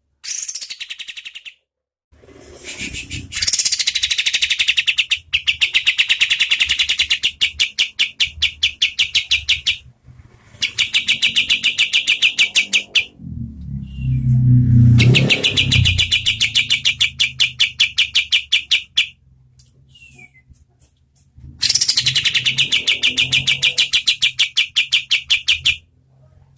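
Kapas tembak bulbul singing its rattling 'tembakan' song: long trills of fast, evenly repeated notes in bouts of several seconds, with short pauses between them. A low rumble comes under the song about halfway through.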